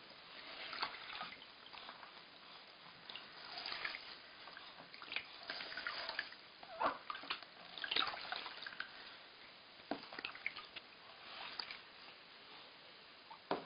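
Water splashing and dripping in a plastic baby bathtub, with irregular small splashes from a hand and sponge washing a baby.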